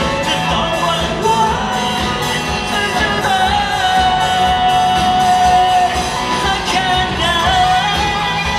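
Live band playing a Thai pop-rock song, with lead vocals over drums and guitar. The singer holds one long note through the middle.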